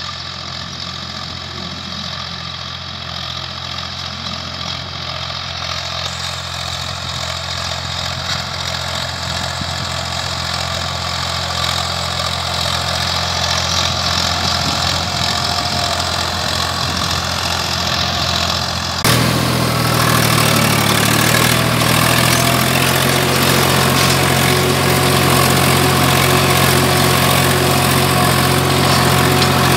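Swaraj 855 tractor's three-cylinder diesel engine running steadily while pulling a cultivator through ploughed soil, growing louder as it comes closer. About two-thirds of the way through, the sound switches abruptly to the same engine heard close up from on the tractor, louder and with much more hiss and rattle.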